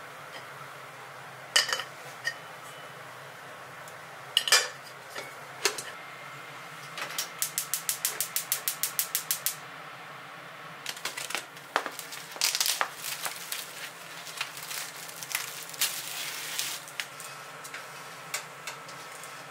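Metal cookware clinking and clanking. A gas stove burner's igniter then clicks rapidly, about six ticks a second for a couple of seconds, and stops once the burner lights. After that comes a longer run of metallic rattling and clattering as the grill rack and foil are handled.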